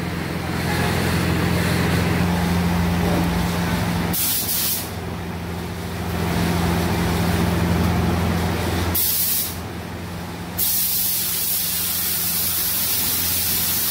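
Air spray gun hissing as it lays red paint onto a car body: short bursts about four and nine seconds in, then steady spraying from about ten and a half seconds. Under it a steady low hum runs until about nine seconds in.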